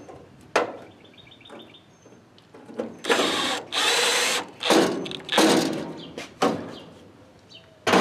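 A cordless brushless drill with a long bit drilling through the steel firewall patch plate. It runs in several loud spurts of about half a second to a second each, starting about three seconds in.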